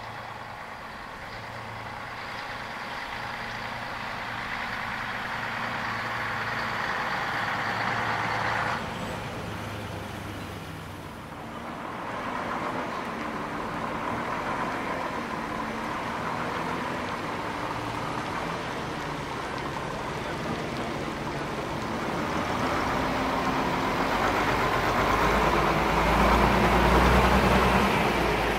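Engines of preserved vintage buses running and moving. The sound builds, drops abruptly about nine seconds in, then builds again, loudest near the end as a bus comes close.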